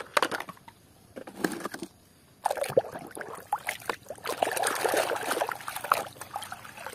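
Water splashing and trickling as a muddy plastic toy vehicle is handled and washed, with small plastic clicks and knocks. There is a short pause about two seconds in, then steady splashing.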